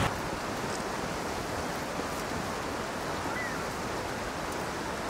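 Steady rushing of flowing water, an even noise with no rhythm.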